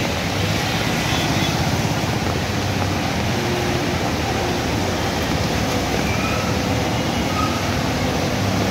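Traffic driving through a flooded street: engines of auto-rickshaws, cars and trucks running steadily, with water swishing and splashing around their wheels.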